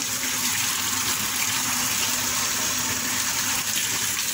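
Water pouring from the inlet of a top-loading washing machine into its drum, a steady gush as the tub fills at the start of a test wash.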